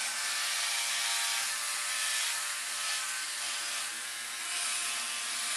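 Philips OneBlade electric shaver running with a steady buzz as its blade scrapes through lathered stubble. A rasping hiss swells with each stroke across the cheek.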